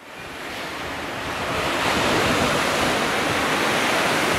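Steady rushing of ocean surf, fading in from silence over the first two seconds and then holding level.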